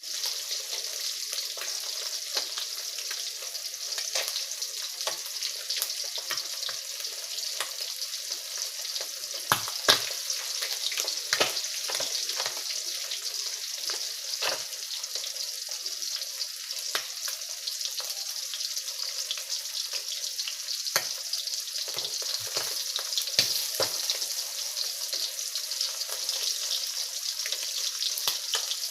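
Fish frying in hot oil: a steady sizzle with scattered crackles and a few louder pops, the loudest about ten seconds in and again near twenty-three seconds.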